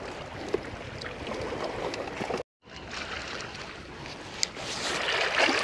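Steady outdoor noise of shallow sea water washing over a rocky shore, broken by a moment of dead silence about halfway through where the video is cut. After the cut comes a single sharp click, and the noise swells near the end.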